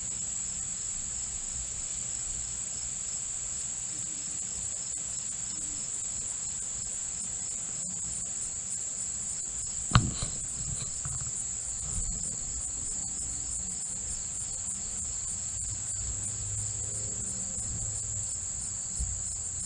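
Steady, high-pitched chorus of insects, with one sharp click about halfway through.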